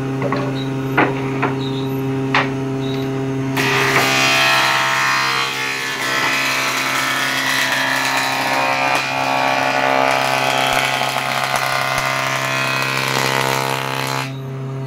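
Woodworking jointer (surface planer) running with a steady motor hum, with a few knocks at first. About three and a half seconds in, a board is fed over the spinning cutterhead, and the loud shaving noise of the blades planing the wood goes on for about ten seconds, then stops, leaving the machine's hum.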